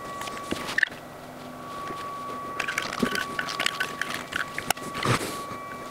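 Wet silicone being squeezed from a tube and worked into a tape-lined mould: small squelches, clicks and scrapes of the nozzle and plastic spreader, with a louder rustling swish about five seconds in. A faint steady high tone runs underneath.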